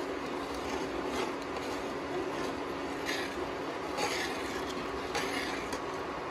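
Steel spoon stirring thick yogurt-and-potato gravy in a pan, with a few short scrapes against the pan's side, over the steady hum of an induction cooktop.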